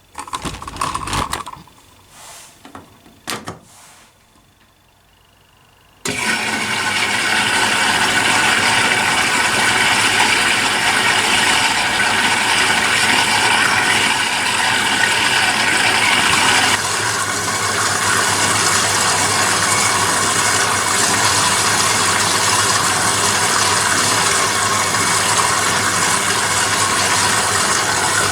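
A few short clicks and knocks, then about six seconds in a washing machine's water inlet starts suddenly and water rushes steadily into the Privileg Compakt 92 as it fills.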